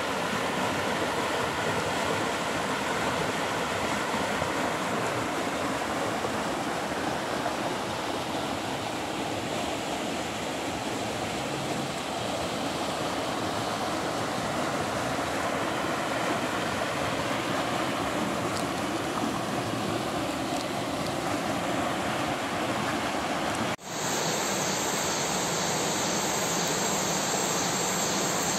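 Rushing water of a rocky stream, white water tumbling over boulders: a steady, even roar. A few seconds before the end it breaks off for an instant and resumes as the same steady noise of water pouring in small cascades over rock slabs.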